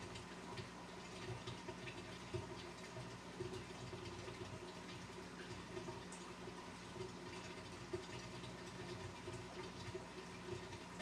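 Fish room ambience: an aquarium pump running with a steady hum, under faint water trickling and small scattered ticks and patters.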